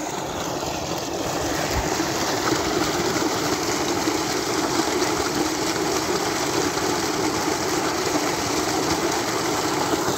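Heavy flow of water pouring from a solar tube well pump's outlet pipe into a concrete tank, a steady gushing and splashing that grows louder over the first couple of seconds and then holds.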